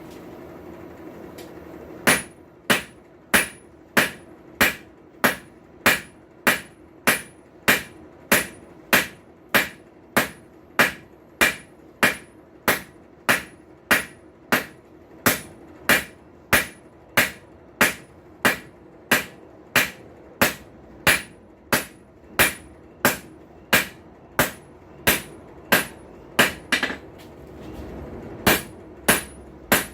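Blacksmith's hammer striking a hot railroad spike on an anvil, drawing it out into a tong blank: a steady run of sharp ringing blows, about three every two seconds, starting about two seconds in, with a short pause near the end before the hammering resumes.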